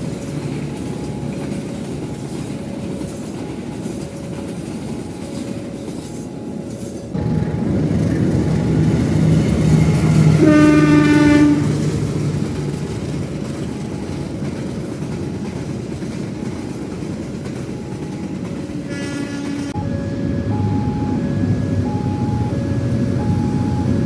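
Passenger train passing close by, with a steady rumble and clatter of wheels on the rails. The train horn sounds one clear blast about ten seconds in and a shorter one near nineteen seconds. A faint tone repeats about once a second behind the train noise.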